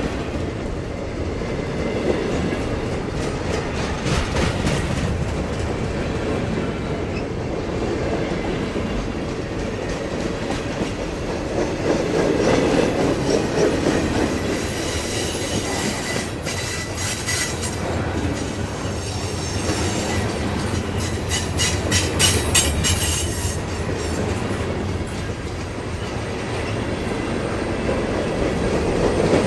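Freight cars of a CSX train rolling steadily past, wheels rumbling and clacking over the rail. Between about halfway and three-quarters of the way through, high-pitched wheel squeal comes and goes.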